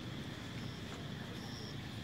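A steady low motor hum with a faint steady high whine above it, and two faint short high chirps in the middle.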